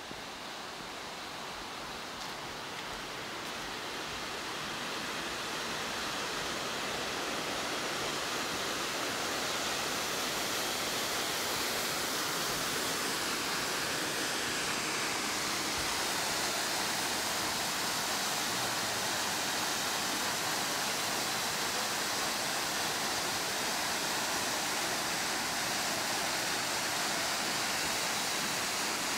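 Steady rush of flowing mountain water, growing louder over the first several seconds and then holding even.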